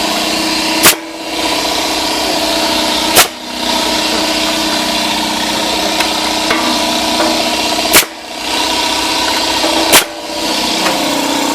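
A 60-gallon, 220-volt single-phase air compressor running steadily with a continuous machine hum. Four sharp clicks come through it, each followed by a brief dip in level.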